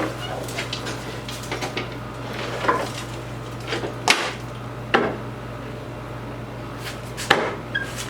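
Scattered wooden knocks and clunks as the top of a flip-top workshop cart is swung over and settled into place, the sharpest about four seconds in and again near the end. A steady air-conditioner hum runs underneath.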